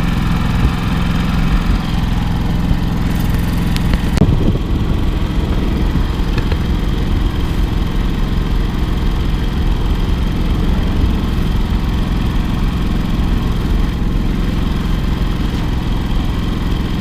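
Portable inverter generator's small gasoline engine running at a steady speed with an even hum. There is a brief rustle and knock about four seconds in.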